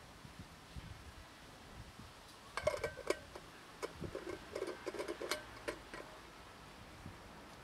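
A kitten licking and nibbling at a plastic food container lid: a quick run of small clicks and taps of tongue and teeth on the plastic, starting about two and a half seconds in and lasting some three seconds.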